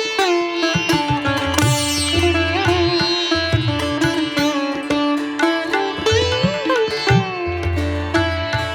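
Background instrumental music in an Indian classical style: a plucked string melody that slides between notes over a steady low drone.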